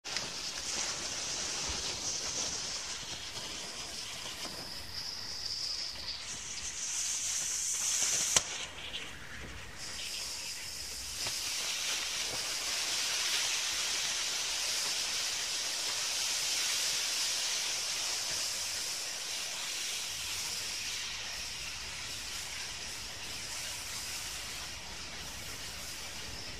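Three smoke balls hissing steadily as they burn, first spraying sparks and then jetting out smoke. A single sharp pop comes about eight seconds in; the hiss drops for a few seconds after it, then grows stronger and holds steady.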